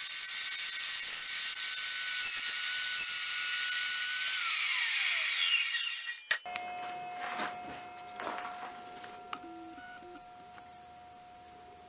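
Evolution R355 carbide-tipped chop saw running at full speed with a steady whine while its blade cuts through a reclaimed 2x4 with nails driven into it, then the motor winding down with a falling whine about five seconds in. Afterwards only faint handling clicks over a faint steady tone.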